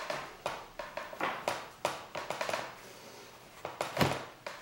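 Hands slapping and kneading a large lump of clay on a wooden board: a run of irregular soft slaps and thuds, with a short pause about three seconds in and the loudest slap about a second later.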